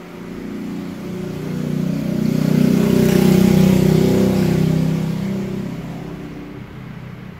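A motor vehicle passing by: a steady low engine note with hiss that swells to its loudest about halfway through, then fades away.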